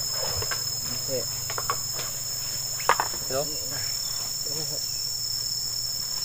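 Forest insects droning steadily with a continuous high-pitched whine. A single sharp knock sounds about three seconds in.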